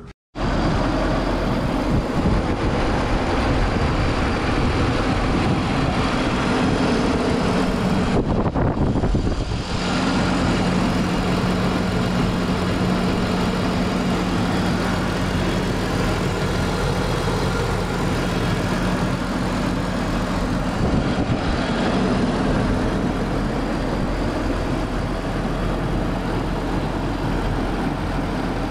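BMW Z3 2.3's 2.5-litre straight-six engine idling steadily, freshly tuned up with new plugs, water pump, belts and motor mounts.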